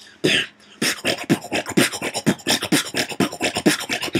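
Beatboxing: a fast, steady rhythmic pattern built on the "Transformer" sound, in which the mouth opens from a small to a big O, starting about a second in. Many hits bend down in pitch.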